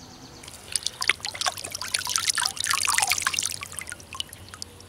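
Shallow river water splashing and trickling as a filleted catfish carcass is moved through it by hand. The splashing is busiest two to three seconds in, then thins to scattered drips.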